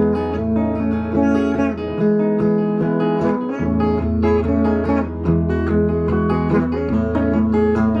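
Custom Anu "Aza" flame-maple and mahogany electric guitar played through a portable PA speaker. A continuous run of picked notes rings over a sustained low note, which drops out briefly between about two and three and a half seconds in.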